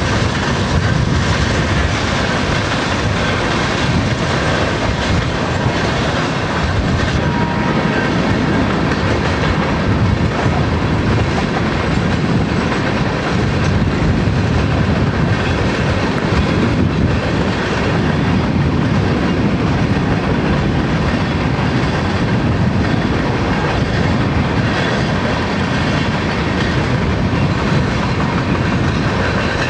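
A Santa Fe freight train passing at speed. Its diesel locomotives go by at first, then a long string of coal gondolas, whose wheels run steadily over the rails.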